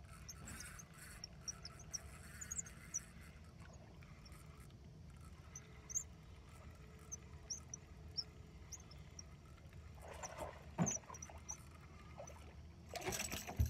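A hooked largemouth bass fought to a canoe: faint high squeaks dotted throughout, a sharp splash about eleven seconds in, and a longer stretch of splashing and thrashing near the end as the fish is brought to the boat.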